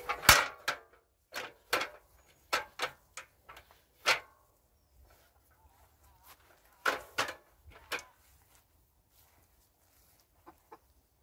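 Aluminium stepladder clanking and rattling as it is opened and set in place: a run of sharp metal knocks, some briefly ringing, loudest at the start and coming in clusters, with a couple of faint ticks near the end.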